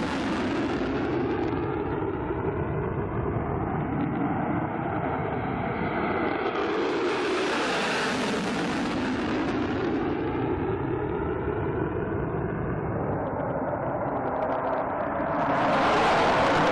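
F-35 fighter's single F135 jet engine in afterburner, a continuous jet rumble and hiss from a passing aircraft. The hiss swells about halfway through and again, louder, near the end.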